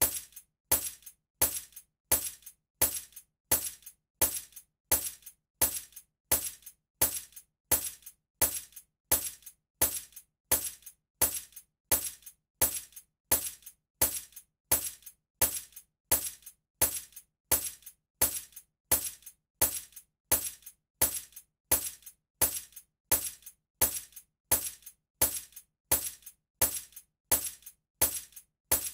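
A bunch of keys jingling in short, bright clinks, about three a second, in an even pattern that repeats over and over.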